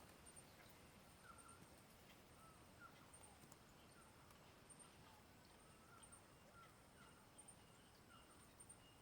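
Faint rainforest ambience: short bird chirps, roughly one or two a second, over a steady thin high-pitched tone that pulses now and then.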